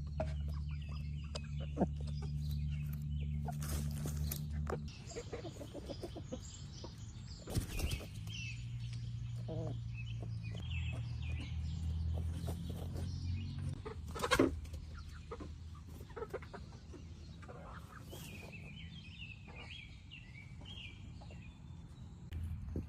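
Young chickens, about 13 weeks old, chirping and clucking softly in a run, with scattered small clicks and one louder knock about fourteen seconds in. A low steady hum runs underneath.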